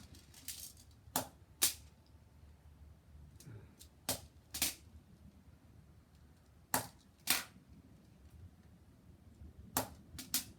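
Crosman SNR 357 CO2 BB revolver being fired: sharp cracks in four pairs, each pair about half a second apart, with roughly three seconds between pairs.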